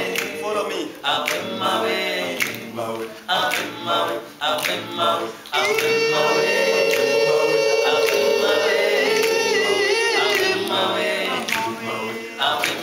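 An a cappella vocal group singing in harmony: short rhythmic phrases, then a long held chord for about five seconds with a high voice wavering above it, before the rhythmic singing picks up again near the end.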